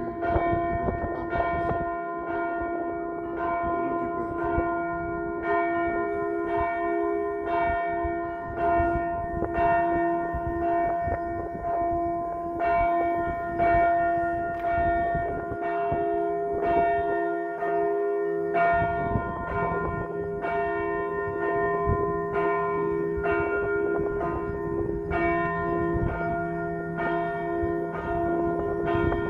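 Church bells ringing in a steady peal, struck about one and a half times a second, their tones ringing on between strokes.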